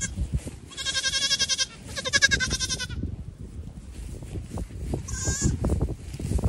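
A goat kid bleating: two long, wavering bleats one after the other in the first three seconds, then a short one about five seconds in.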